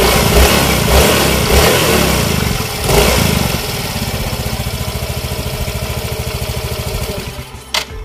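Yamaha Mio i125 scooter's single-cylinder engine running with the CVT cover off and the drive belt and clutch bell spinning, the belt turning smoothly without flapping on its new RS8 CVT set. It is revved briefly a few times in the first three seconds, then runs steadily, and dies down near the end with a sharp click.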